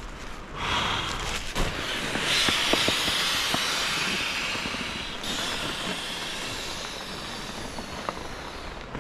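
Snapper fillets sizzling in a hot frying pan. The sizzle starts about half a second in, swells over the next couple of seconds with small crackles, then slowly dies down.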